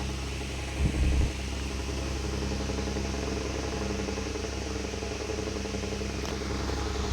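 Steady low mechanical hum, with a brief louder low bump about a second in.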